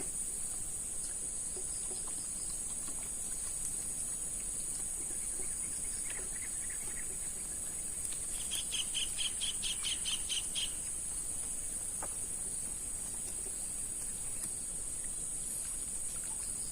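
Steady high-pitched drone of insects over a swamp forest, with a bird calling a quick run of repeated notes about halfway through and fainter calls a little before.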